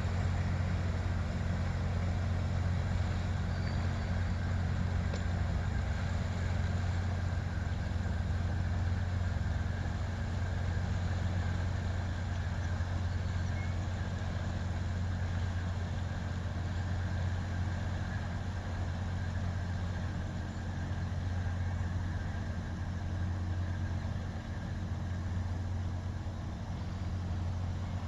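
Cruise ship's engines running as it moves off down the creek: a steady low hum, growing slightly fainter near the end.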